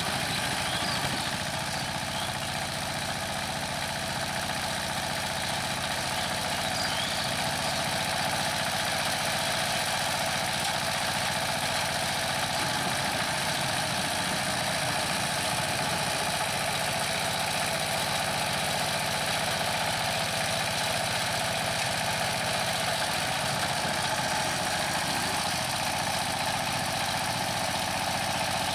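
Two-wheel power tiller's single-cylinder diesel engine running steadily under load as it drives the rotary tiller through the soil.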